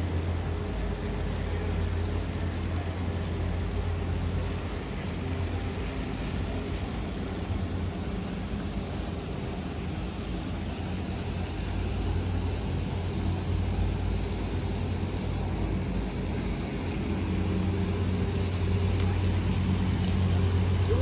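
Tour boat's engine idling in a canal lock, a steady low hum that grows a little louder over the last few seconds.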